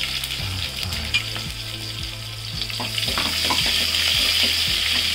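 Sliced onion sizzling in hot oil with mustard seeds, curry leaves and dried red chilli in a stainless steel pot: the first frying stage of a tadka (tempering). It is stirred, with short scrapes and clicks against the pot over a steady sizzle and a steady low hum.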